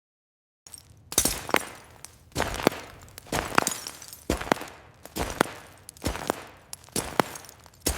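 Footsteps walking on gravel: shoes crunching the stones at a slow, even pace of about one step a second, eight steps beginning about a second in.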